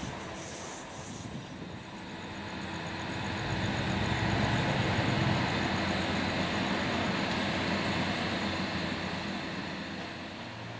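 Street traffic: a passing vehicle's rumble swells about two seconds in, holds for several seconds, and fades near the end.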